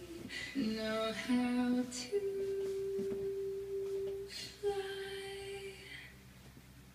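A woman's singing voice from a recorded song, holding long notes over sparse backing, dying away about six seconds in.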